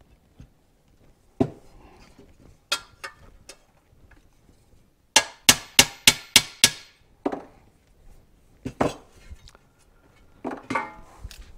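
Small hammer peening rivets on a 1968 Ford Torino's steel shifter plate, set on a steel block. The strikes ring like metal: a quick run of about six, roughly three a second, a little past the middle, with single knocks and clinks before and after as the part is shifted and set down.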